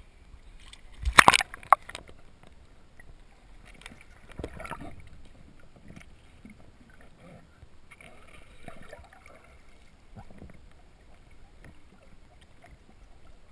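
Water splashing, loudest in a short burst about a second in, then faint muffled sloshing and gurgling.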